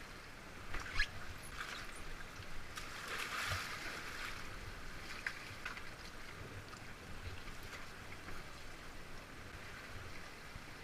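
Kayak paddle strokes splashing in rushing whitewater, with sharp splashes about a second in and a louder surge of splashing around three to four seconds in.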